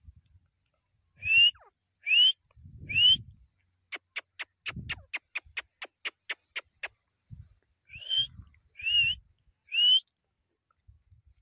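Grey francolin (teetar) calling: three loud, short whistled notes that slide upward, a fast run of about fourteen sharp clicks, then three more rising whistles.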